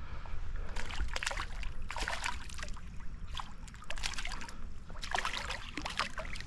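Water splashing and sloshing in irregular spells, one about a second in and another near the end.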